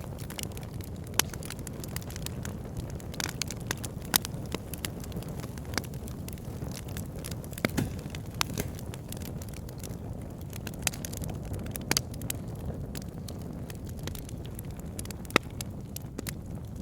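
Wood fire crackling in a fireplace: a steady low rumble of burning with frequent sharp pops and snaps, a handful of them much louder than the rest.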